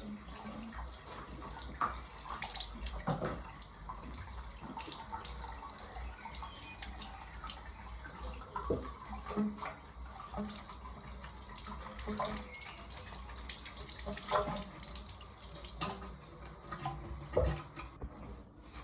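Kitchen tap running into a sink while vegetables are rinsed by hand, with scattered knocks and clatter.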